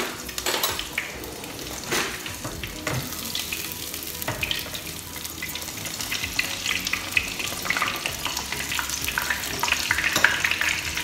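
Breaded pork cutlet frying in hot oil in a pan: a steady sizzle with crackling spatter, interrupted by a few sharp clicks in the first half and growing a little louder toward the end.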